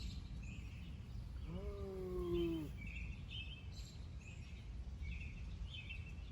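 Birds chirping, short calls repeating every second or so, over a steady low rumble of wind on the microphone, with one brief held tone that drops in pitch about two seconds in.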